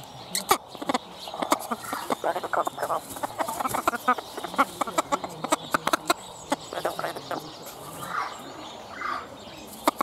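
Blue-fronted amazon parrot chattering at close range: short, broken, mumbling calls mixed with many sharp clicks, and two brief higher calls near the end.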